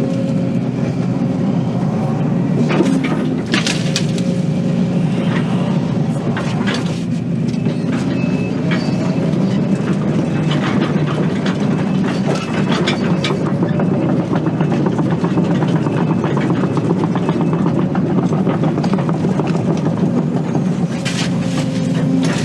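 Excavator's diesel engine running steadily, with scattered sharp knocks and clanks from the machine working.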